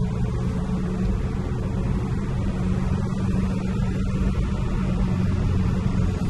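Car engine and road noise heard from inside the cabin while driving, a steady low drone.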